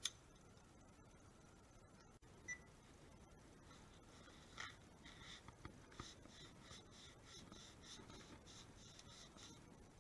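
Faint, quick rubbing strokes, about three a second, starting about halfway through, after a click at the start and a short high chirp.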